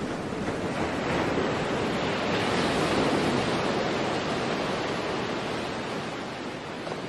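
Steady rushing sound of waves washing, swelling a little around the middle and easing toward the end.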